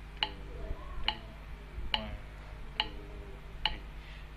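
Metronome ticking steadily at about 70 beats a minute, five sharp clicks, as the beat for a 3/4 rhythm-reading exercise. A faint voice is heard between the ticks.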